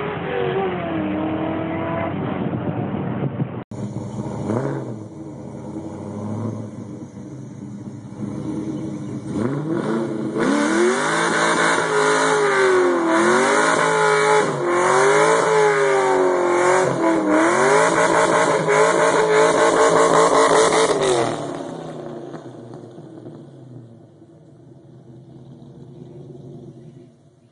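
Pontiac GTO's V8 doing a burnout, revved up and down again and again over the noise of its spinning rear tyres for about ten seconds, then fading away as the car moves off. Before that, a few seconds of engine and road noise come from inside a following car.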